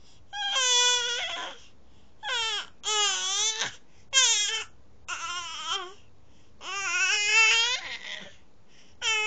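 Baby crying in a string of short, wavering, complaining wails, about six of them with short pauses between, the longest near the end.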